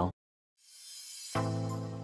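Background music: a brief dead silence, then a soft rising hiss swells into sustained chords about one and a half seconds in.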